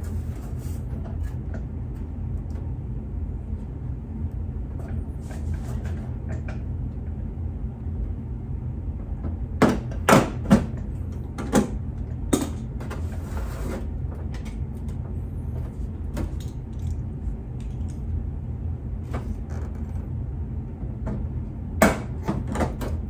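Thin aluminium aircraft skin and its Cleco'd rib skeleton being handled and flexed by hand: a few sharp metallic clicks and knocks over a steady low hum. The loudest cluster comes about ten seconds in, with another knock near the end.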